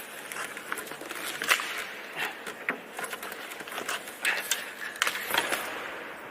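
Scattered scrapes, rustling and sharp knocks of a person clambering in through a window, several louder clicks about one and a half, four and a half and five and a half seconds in.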